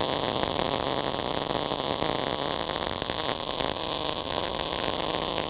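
A MIG (gas metal arc) welding arc crackles steadily as a bead is laid on 3/8-inch steel plate, with an even, unbroken frying hiss.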